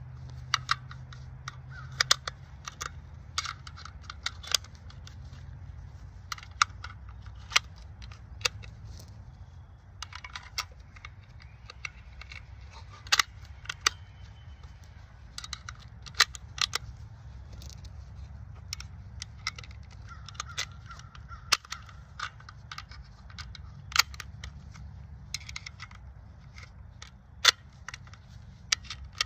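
Irregular sharp clicks and knocks, a few each second and unevenly spaced, over a steady low rumble.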